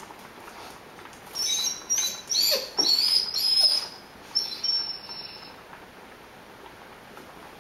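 Rhodesian Ridgeback whining, excited by the smell of ground beef cooking: a quick run of high-pitched whines, then one longer whine about four and a half seconds in.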